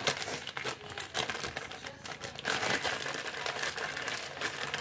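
Clear plastic wrapping crinkling as it is handled, a rapid, irregular run of crackles.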